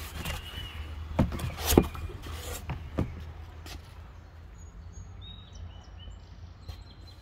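Cardboard boxes and plastic toy blister packs being handled: a few sharp knocks and crackles in the first three seconds, the loudest about two seconds in. Then a handful of short high chirps over a steady low background rumble.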